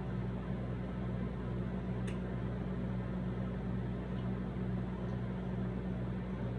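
A steady low mechanical hum with an even fan-like hiss, from a running appliance or fan in the room. Over it come a few faint clicks as nacho chips are picked from the plate, the sharpest about two seconds in.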